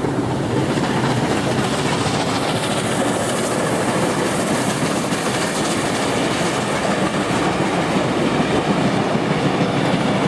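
NSW C36 class steam locomotive 3642 running past at close range, followed by its train of wooden passenger carriages rolling by on the rails, a loud steady noise throughout.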